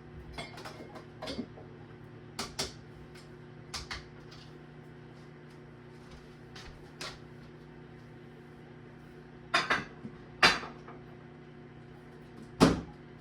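Dishes being put away in kitchen cabinets: scattered clinks, knocks and cabinet door bumps, the loudest few in the last third, over a faint steady hum.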